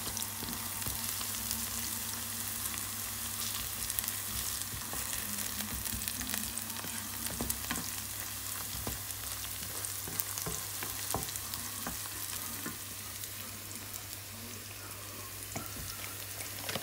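Sliced onions sizzling in hot oil in a frying pan as they brown, with scattered clicks and scrapes of stirring. A steady low hum runs underneath.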